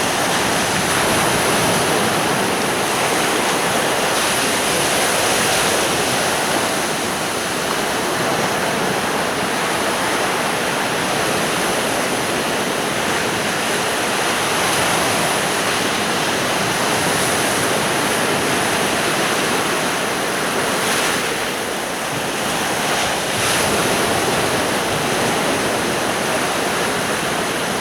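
Sea surf washing on a sandy beach: a steady rush of waves that swells and eases a little.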